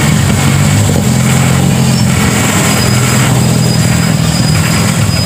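Toyota Land Cruiser 60-series engine running steadily at low speed as the vehicle rolls past close by, a loud low hum.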